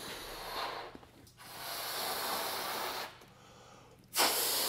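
A man blowing up a rubber balloon by mouth: long, breathy puffs of air, each about a second and a half, with short pauses for breath between them.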